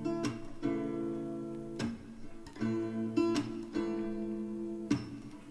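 Background song between sung lines: guitar strumming chords that ring on, re-struck about once every second.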